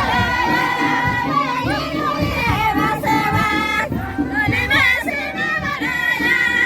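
A group of high voices singing a song together in chorus.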